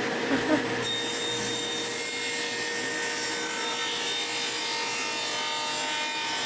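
A sliding table saw runs and cuts through a wooden board. It makes a steady whine with several tones over a broad rushing noise, and a higher hiss joins about a second in.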